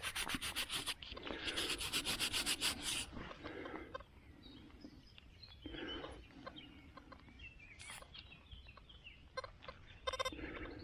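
Rapid, evenly paced scraping or rubbing for about three seconds, then it stops and leaves a quieter stretch with faint chirps.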